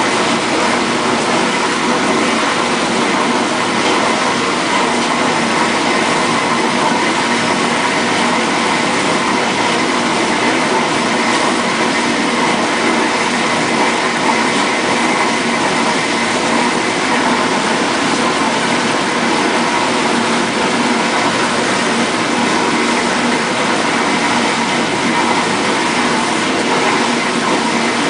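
1958 GE Mobile Maid portable dishwasher running its wash cycle: a steady motor hum under the rush of water spraying and splashing inside the tub, unchanging throughout.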